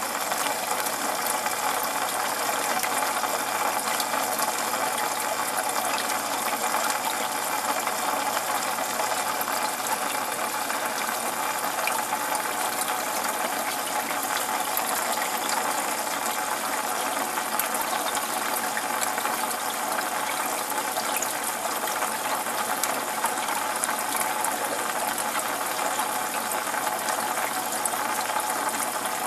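Aquarium water filter running: a steady trickle and splash of water with dense fine crackling, unchanging throughout.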